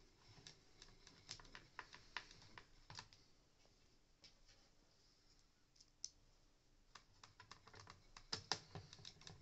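Faint clicks and ticks of a small screwdriver driving screws into the plastic housing of a Dyson soft roller cleaner head, the screws going in smoothly without undue resistance. The clicking pauses for a few seconds in the middle and starts again near the end.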